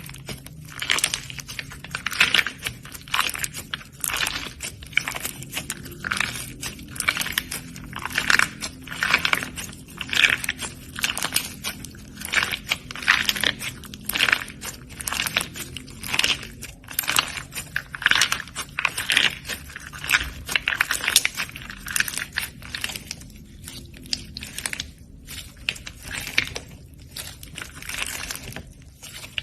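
Slime being squeezed and pressed by hand, giving repeated crunchy crackles and pops, about one or two a second, on and off.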